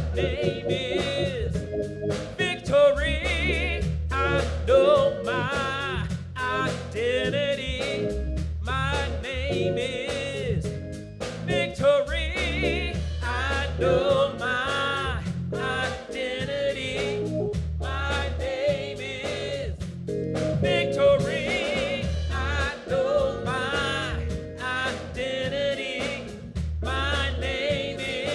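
Gospel worship song sung by several voices into microphones, over an accompaniment with a bass line and a steady beat.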